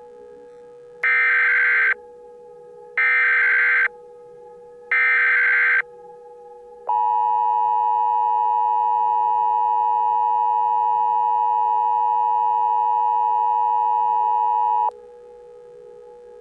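Emergency Alert System tones: three short bursts of SAME header data screech, each about a second long with about a second between them, then the steady two-tone EAS attention signal held for about eight seconds before cutting off. A fainter steady low tone drones underneath throughout.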